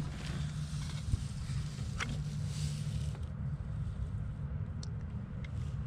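Steady low background hum with a few faint clicks and taps, about three across the stretch.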